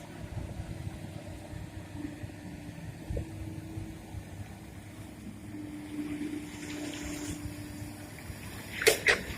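Komatsu PC200 excavator's diesel engine running steadily with a faint held tone, and a couple of sharp knocks close together near the end.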